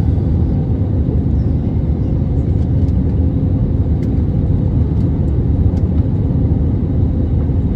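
Cabin noise of an Airbus A320neo on final approach just before touchdown, heard from a seat over the wing: a steady low rumble of engines and airflow with a faint steady hum above it.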